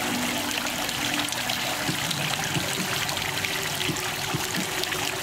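Water from a tiered stone fountain, running from lion-head spouts and splashing steadily into the basin.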